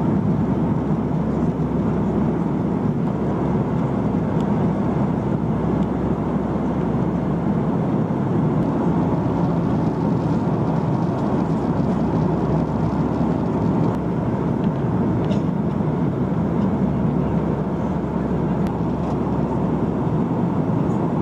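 Steady cabin noise of an Airbus A340-313 airliner in flight: an even, deep rush of airflow and the drone of its four CFM56 engines, unchanging throughout.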